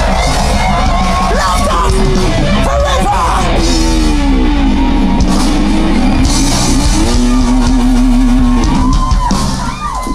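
Punk rock band playing loud and live, with electric guitars and a lead vocal.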